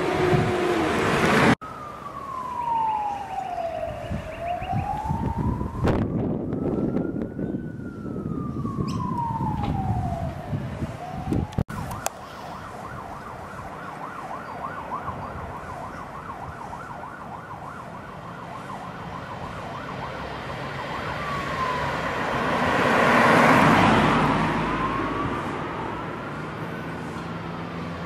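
Emergency vehicle siren wailing, slowly rising and falling in pitch, over street traffic noise. Late on, a car passes close by, the loudest moment.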